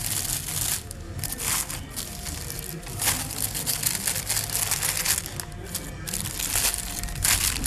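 Paper sandwich wrapper crinkling and rustling as it is pulled open by hand in repeated crackly strokes, over music playing in the background.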